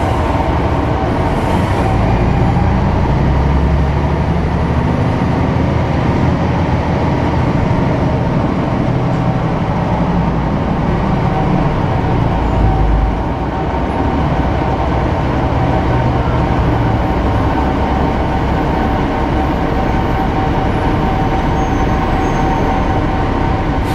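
City bus engine and drivetrain heard from inside the passenger cabin while the bus is under way. The engine's deep rumble pulls hard through about the first thirteen seconds, eases briefly, then runs on steadily, with a constant high whine over it.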